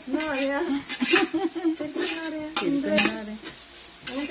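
Sliced onions sizzling in hot oil in a pot while a spoon stirs them, scraping and knocking against the metal, as they are sautéed with salt until soft.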